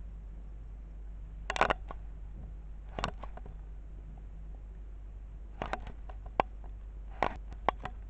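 A few short clusters of sharp clicks and taps, about four of them spread through, over a steady low hum.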